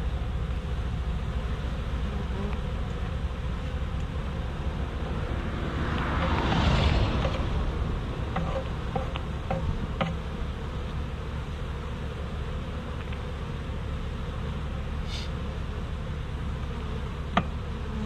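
A swarm of honey bees buzzing steadily as they are brushed off a mailbox and fly around it. A broad whoosh swells up and fades about six to seven seconds in, and a single sharp click comes near the end.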